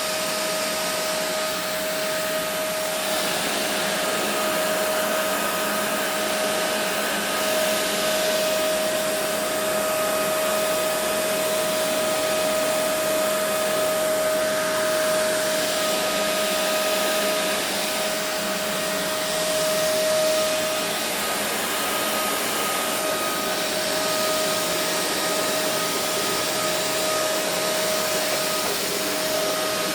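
Kenmore Intuition upright vacuum cleaner running on carpet: a steady rush of air over a constant motor whine, with small swells in level twice.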